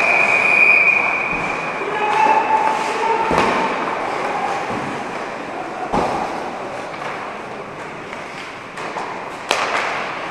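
Indoor ice rink during hockey practice: a few sharp knocks of pucks and sticks, about three spread through, over echoing hall noise of skating and distant voices, with a high held tone in the first two seconds.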